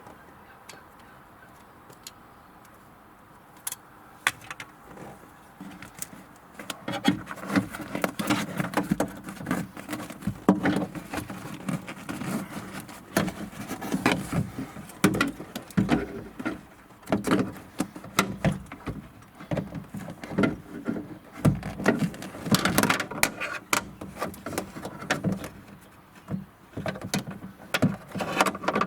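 Hands and tools working on a Peugeot 308 front door during check strap replacement: a few light clicks at first, then from about seven seconds in a busy run of irregular clicks, knocks and metallic rattles.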